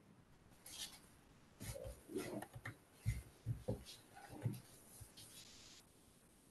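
Faint, scattered handling noises heard over a video-call line: a few soft taps and rubs, short low knocks about three seconds in, and a brief hiss near the end, typical of someone working a computer while setting up screen sharing.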